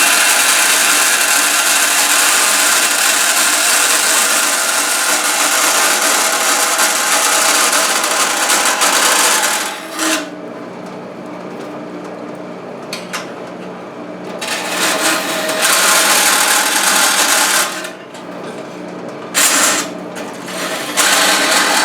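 Metal-cutting bandsaw with a bimetal blade, slowed to about 900 feet per minute, cutting a brass plate. A loud steady cutting hiss lasts for about the first ten seconds. Then the saw runs more quietly with a steady hum, and the cut resumes for a few seconds past the middle and in two short spells near the end.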